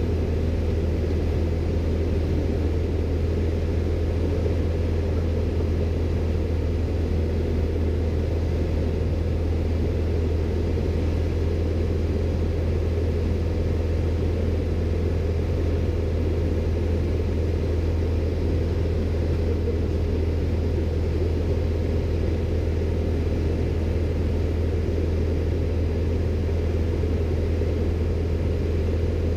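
Steady low drone of a light single-engine propeller aircraft's engine and propeller, heard from inside the cockpit in level flight.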